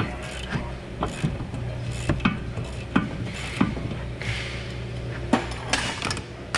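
Irregular sharp metal clinks and clanks, about a dozen, from a wrench on the rear brake caliper bracket bolts and from the steel caliper bracket and brake pads being worked off the hub, over a steady low hum.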